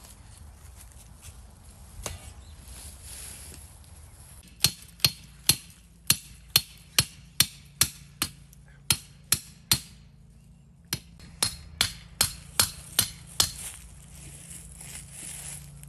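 Repeated hammer blows on a steel fence stake, about two and a half strikes a second with a metallic ring. There are two runs, the second shorter, with a short pause between them.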